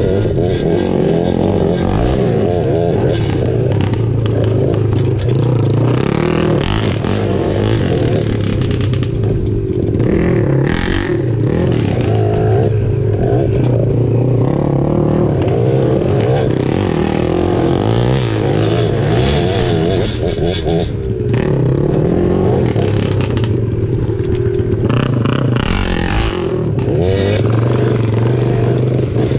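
Motor vehicle engine running hard, its pitch wavering up and down, with scraping and clattering.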